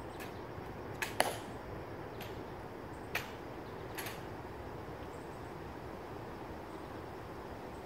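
Quiet outdoor hush with a few isolated sharp clicks: a close pair about a second in, then single fainter clicks about once a second until about four seconds in, after which only the steady background remains.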